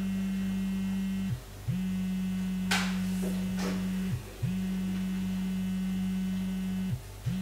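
Mobile phone vibrating with an incoming call: a low buzz in pulses of about two seconds with short breaks between them. A couple of brief scrapes about three seconds in as the phone is picked up from the table.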